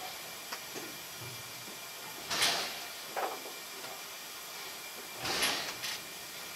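Steam locomotive standing at the platform, giving short bursts of steam hiss about every three seconds, with a fainter puff between them, over a steady low hiss.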